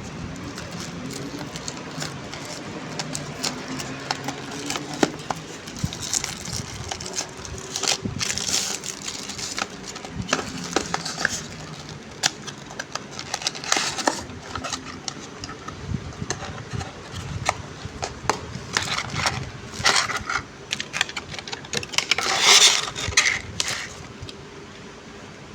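Packaging being handled during an unboxing: irregular crinkling and rustling with scattered clicks, loudest in a burst near the end.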